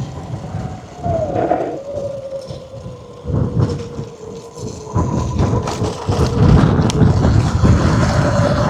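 Wind buffeting the microphone in gusty low rumbles that grow louder about halfway through, over the faint steady drone of an off-road motorbike engine.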